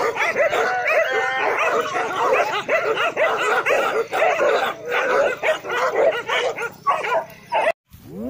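A pack of many leashed dogs barking and yelping all at once in a dense, overlapping chorus, with whines mixed in; it cuts off suddenly near the end.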